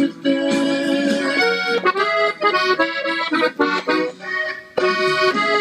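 Gabbanelli button accordion tuned in E, played slowly. It plays a melodic passage of separate notes on the treble buttons, with a short break about five seconds in.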